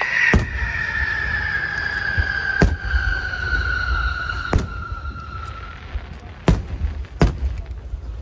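Aerial fireworks going off with five sharp bangs a second or two apart. Under them runs a whistling tone that slowly falls in pitch and fades out about six seconds in.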